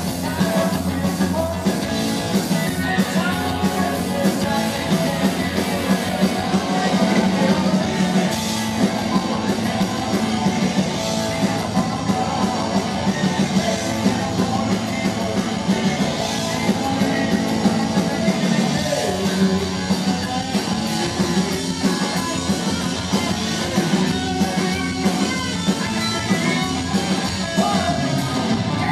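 Punk rock band playing live and loud: distorted electric guitar and drums driving along, with a male singer.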